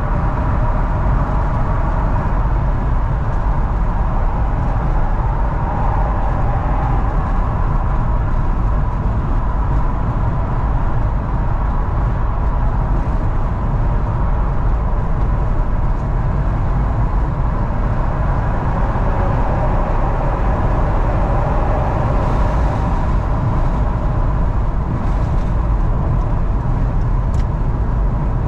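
A car driving along a motorway: steady road and engine noise with a heavy low rumble.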